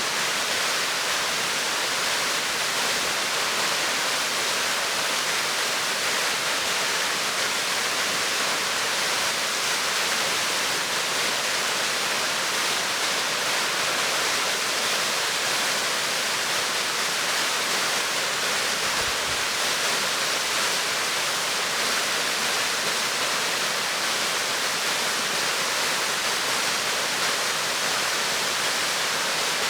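Clocota waterfall's water falling, an even, unbroken rush.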